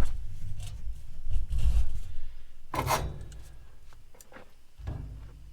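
Scraping and rubbing of metal parts on a gas grill being dismantled, with one louder, longer scrape about three seconds in, over a low rumble.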